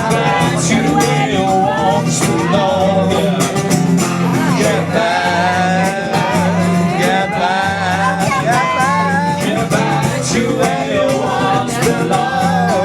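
Live acoustic music: guitar chords played steadily under a wavering sung melody.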